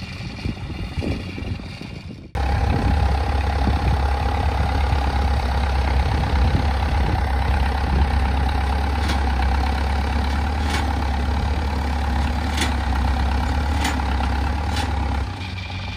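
Engine of a small tracked rice-hauling cart running steadily as it drives over muddy rice stubble: a loud, even low drone with a constant higher tone on top, starting abruptly about two seconds in after a quieter, uneven stretch.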